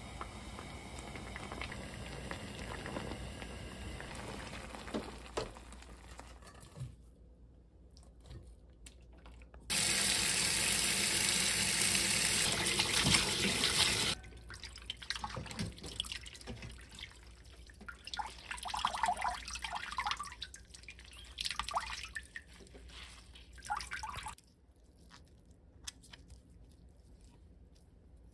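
Kitchen tap running hard onto blanched cabbage in a stainless-steel colander for about four and a half seconds, the loudest part, as the greens are rinsed in cold water. Before it, a pan of water simmers while the greens blanch. After it come scattered splashes and drips as the wet greens are handled.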